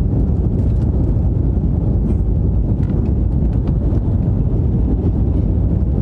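Steady low rumble inside a jet airliner's cabin on the ground, the engines running as the plane rolls along the tarmac.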